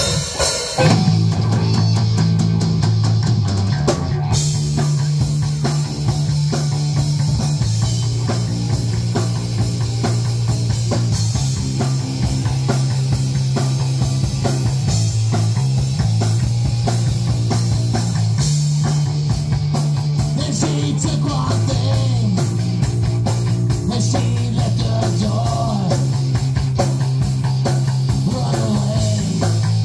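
Rock band playing live: electric guitar, electric bass and drum kit, with a loud bass line moving between held notes under steady drumming.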